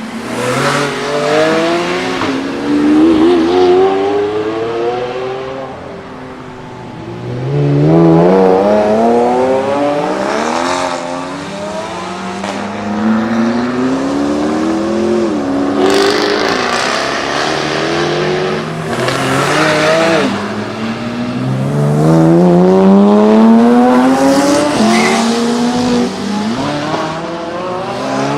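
Several high-performance car engines accelerate hard one after another, each climbing in pitch through the gears with brief dips at the upshifts. The loudest runs come about a quarter of the way in, near the middle and past three-quarters.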